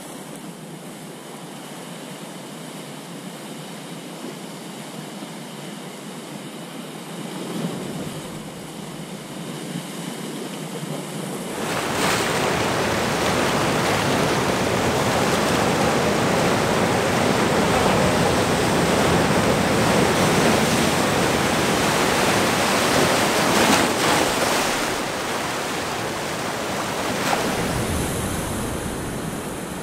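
Ocean surf washing and breaking against a rocky shore. About twelve seconds in, the surf sound jumps louder and fuller, then eases off near the end.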